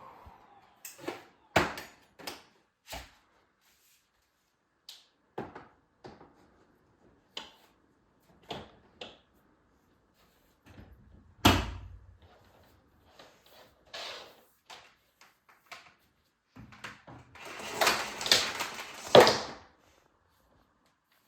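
Scattered clicks and knocks of hard objects being handled and set down, with one louder thump about halfway and a short burst of clattering and rustling near the end.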